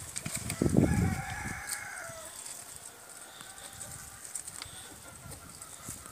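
Chickens calling, with one drawn-out call of about a second and a half near the start and fainter short calls after it. A loud low rumble on the microphone about a second in.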